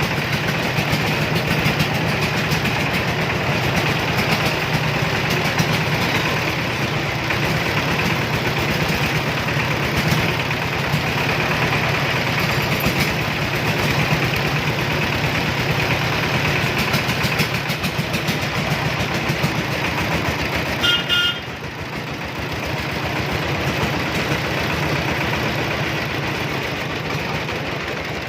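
Engine of a loaded three-wheeler cargo carrier running steadily under load, with fast, even firing pulses. About two-thirds of the way through, a short horn beep sounds and the engine note eases slightly.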